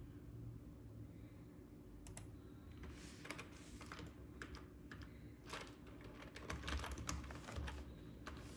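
Typing on a computer keyboard: an irregular run of keystrokes starting about two seconds in, over a low steady hum.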